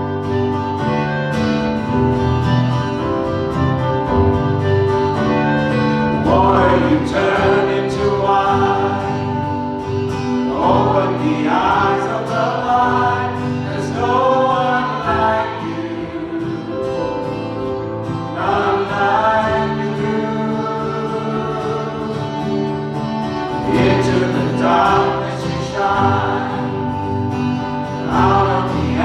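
Gospel worship song: voices singing together over a steady instrumental backing, the voices coming in about six seconds in.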